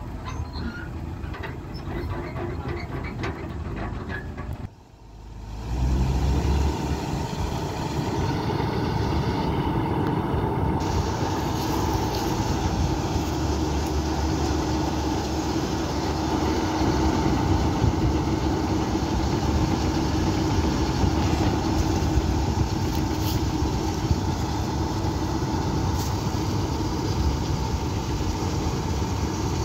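Malkit 997 combine harvester running steadily, its unloading auger pouring soybeans into a trailer, with a steady hum from the machinery. The sound cuts out briefly about five seconds in and comes back louder.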